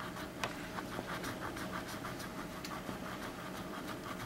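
Wax crayon rubbed back and forth on drawing paper in quick, even scratching strokes, several a second.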